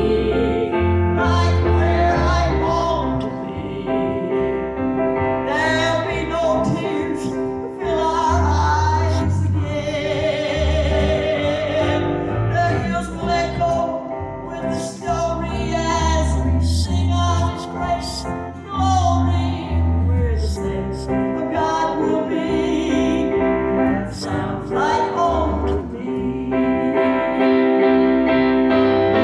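Gospel song: a voice singing with vibrato over instrumental accompaniment with a pulsing bass line.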